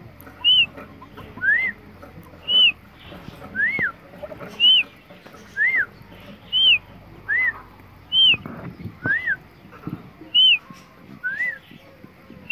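Caged quail calling: short whistled chirps about once a second, a higher clipped note alternating with a lower note that rises and falls.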